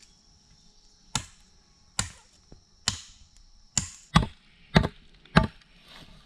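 Machete chopping into a bamboo pole: seven sharp strikes, the later ones coming faster and louder.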